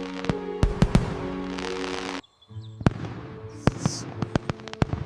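Fireworks going off in an irregular string of sharp bangs and pops, with a short hiss about three and a half seconds in, over background music. The music breaks off briefly a little after two seconds in.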